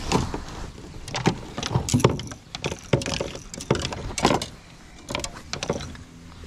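Irregular knocks, clunks and rattles of fishing gear being handled in a boat, coming every half second or so at varying loudness.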